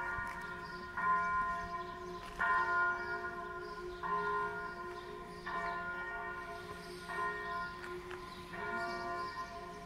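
Church bells ringing, a stroke about every second and a half, each ringing on into the next.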